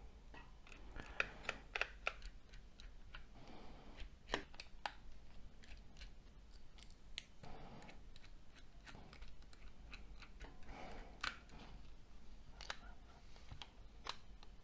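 Faint, irregular clicks and short scrapes of small plastic parts and tools being handled as a Nokia C6-00 phone is taken apart.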